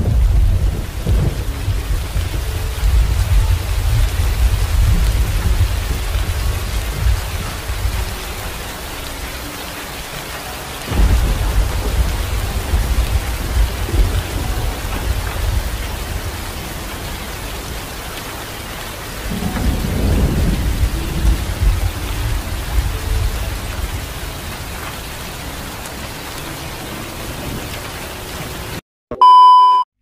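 Steady heavy rain with three long rolls of thunder, each rumbling for several seconds. Near the end the rain cuts out and a short, very loud steady beep sounds, a TV "no signal" tone.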